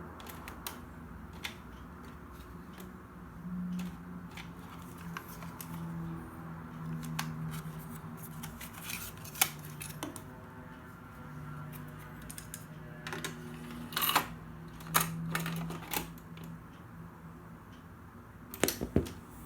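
Scattered sharp clicks and clunks of the National RX-4945 boombox being handled, as of its controls being pressed, with a cluster of louder clicks in the second half. A faint low hum runs underneath, and no music plays.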